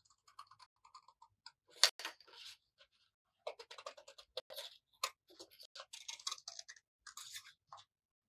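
Scissors snipping through stiff coloured paper in a run of short, sharp clicking cuts, with the sheet crackling as it is turned. The loudest snap comes about two seconds in.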